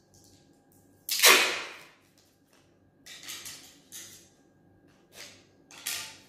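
Masking tape being pulled off the roll: one long, loud rip about a second in, followed by several shorter rips and tears.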